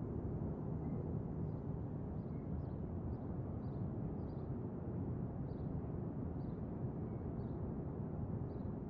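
Steady low background rumble, like ambience through a window, with faint short high chirps about once a second.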